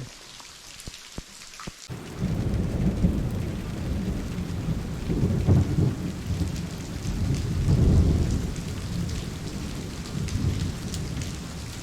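Heavy rain falling, with a low rolling rumble of thunder coming in about two seconds in and swelling and easing several times under the rain.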